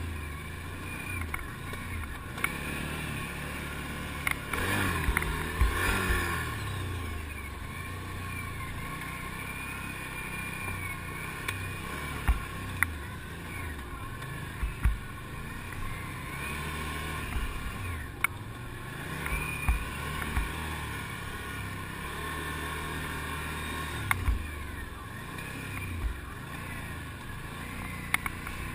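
ATV engine running over rough ground, its pitch rising and falling with the throttle, most clearly about five to six seconds in. Sharp knocks and rattles from the machine now and then.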